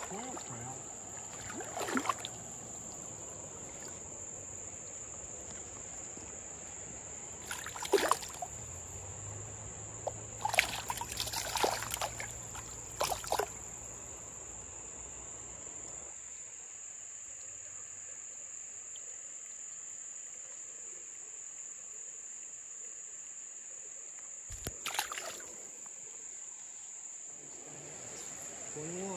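Insects droning steadily on one high pitch. A few short, sharp knocks and scrapes break in, clustered about a third of the way in, with one more near the end.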